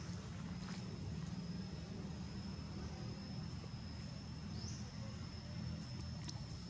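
Outdoor background: a steady low rumble under a thin, steady high-pitched whine, with a few faint ticks and one short rising chirp about four and a half seconds in.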